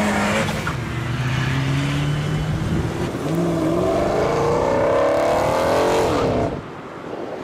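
Cars driving past: first a Dodge Dart's engine at a steady pitch, then a Dodge Challenger accelerating hard, its engine note climbing for about three seconds. Near the end the note breaks off with a quick fall in pitch, and the sound drops away.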